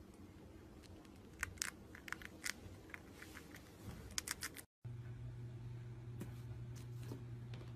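Faint small crunches and clicks, scattered and irregular, of a hamster nibbling seeds and a piece of cheese. They stop suddenly about four and a half seconds in, and a steady low hum follows.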